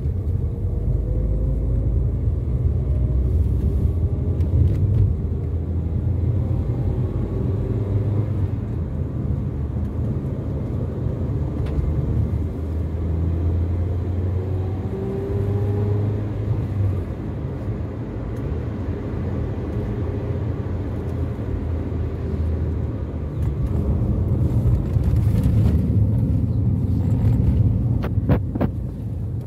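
Car engine and road noise heard from inside the moving car: a steady low rumble, with the engine note rising and falling slowly as the speed changes. A few sharp clicks come near the end.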